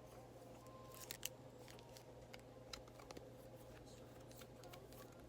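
Near silence with a steady low hum, broken by a few faint light clicks and ticks from handling trading cards, about a second in and again around three seconds in.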